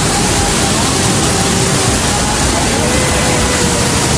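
Large artificial waterfall pouring, a loud, steady rush of falling water, with faint voices under it.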